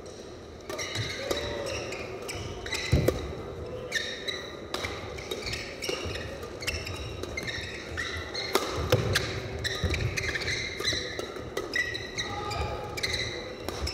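Badminton rally: rackets strike the shuttlecock in quick exchanges while players' shoes squeak on the court surface. It starts about a second in.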